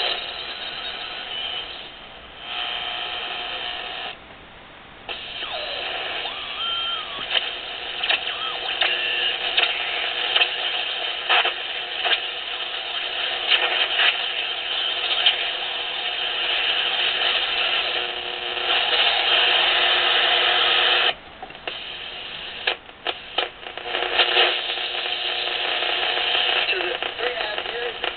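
Ten-Tec 1054 regenerative shortwave receiver playing through its speaker: steady static and hiss as the tuning and regeneration knobs are turned, with short whistles gliding in pitch and scattered crackles. The noise drops out suddenly about four seconds in and again about two-thirds of the way through.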